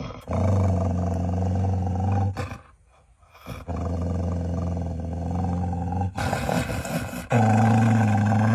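Blue heeler (Australian cattle dog) giving three long, low vocalisations of steady pitch, each about two seconds, the first two separated by a short silence.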